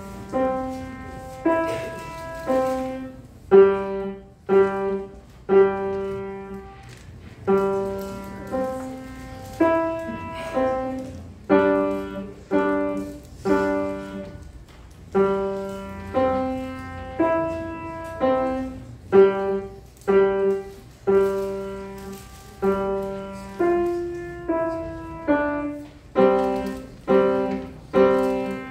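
Grand piano played by a young child: a slow, simple tune of notes struck about once a second, some with a lower note beneath, each left to ring and fade.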